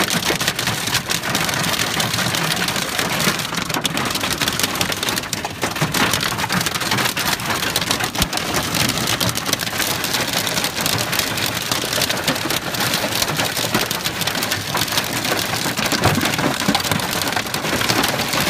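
Hail and heavy rain pelting a car's roof and windscreen, heard from inside the cabin: a loud, dense, unbroken clatter of countless small impacts.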